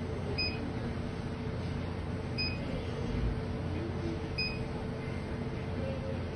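A short, high electronic beep repeating every two seconds, three times, over a steady low hum.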